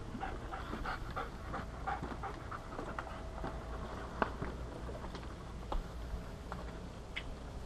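A young German shepherd panting rapidly as it works a scent track on lead, with footsteps and a few sharp knocks.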